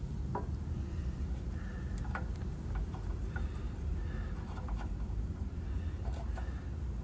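Scattered light clicks and taps, as of small parts being handled, over a steady low rumble.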